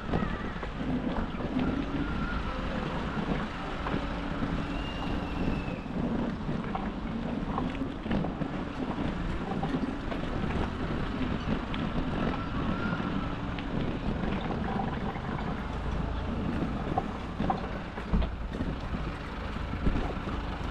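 Steady rumble of wind on the microphone and bicycle tyres rolling along a trail, with scattered light clicks and rattles.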